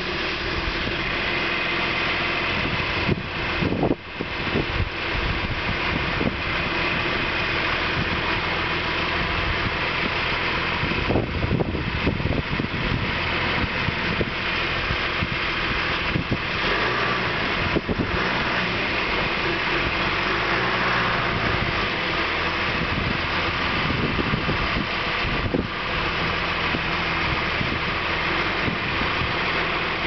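John Deere 710D backhoe's diesel engine idling steadily.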